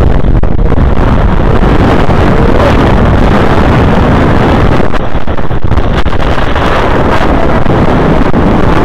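Wind buffeting the microphone of a camera aloft on a parasail: a loud, steady rumble heaviest in the low end.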